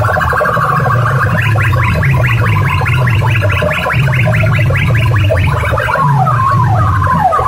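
Loud music blasting from stacked horn loudspeakers: heavy bass under a high note repeated quickly, about six times a second, which gives way about six seconds in to a repeating falling swoop, about two a second.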